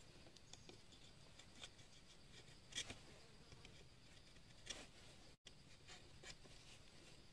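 A knife blade nicking and scraping at a green bamboo pole set with sharpened spikes. A few faint scrapes and light knocks, the clearest about three seconds in.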